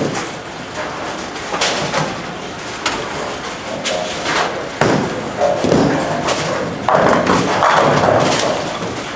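Bowling alley sounds: balls thudding onto the lanes, and a longer clatter of pins being struck about seven seconds in.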